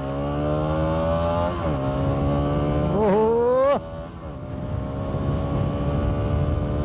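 Bajaj Pulsar NS200's single-cylinder engine accelerating hard through the gears, breathing through an aftermarket exhaust with its dB killer fitted. The pitch climbs, drops at an upshift about one and a half seconds in and again near four seconds, then climbs once more.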